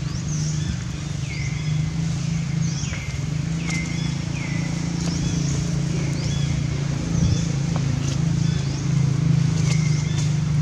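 An animal's short high calls, each sliding down in pitch, repeating about once a second over a steady low hum.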